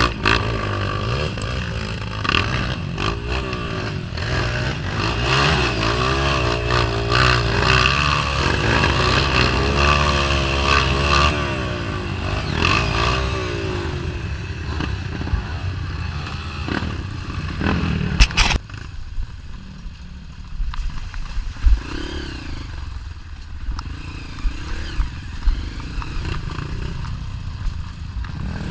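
Dirt bike engines revving up and down under load on a steep rocky climb, with scraping and clattering. About two-thirds of the way through there is a sharp knock, after which the engines run quieter with scattered knocks and scrapes.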